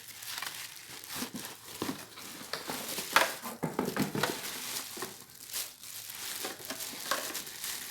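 Packaging crinkling and rustling as a sandwich maker is unpacked from its box, with irregular sharp crackles, the sharpest about three seconds in.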